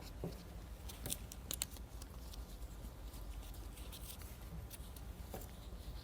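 Faint handling noise from a nitrogen-oxygen sensor's wire harness being moved about: a few light clicks and rustles, most of them in the first second and a half and one more near the end.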